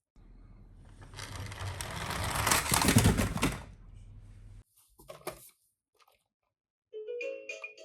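Toy ambulance minicar rolling down a slope, a rattling run that grows louder as it speeds up and stops abruptly; a few clicks follow, and near the end the toy's electronic siren starts, a repeating pattern of beeping tones.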